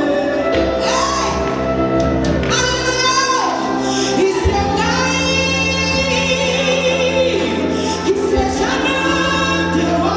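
Live gospel music: a band playing sustained chords with a group of voices singing over them, the bass shifting to a new held note about four and a half seconds in.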